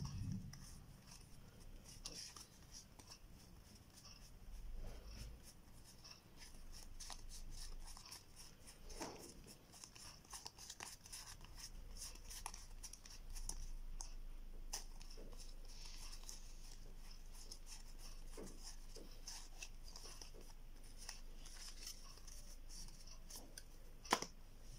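New DOS game cards being handled and sorted by hand: stiff cards sliding and flicking against each other in a run of small, soft clicks. One sharper tap near the end as a deck is set down on the tile floor.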